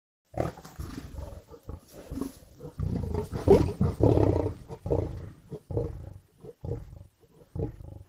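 Lion growling and snarling at a kill. A loud, drawn-out stretch comes in the middle, then it breaks into a run of short growls, each under a second long, near the end.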